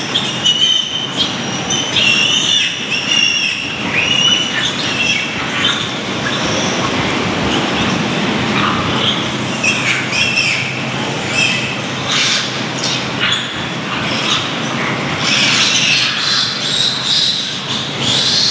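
A litter of piglets squealing and jostling as they suckle at a sow, with high-pitched squeals strongest in the first few seconds and again near the end. A steady low hum runs underneath.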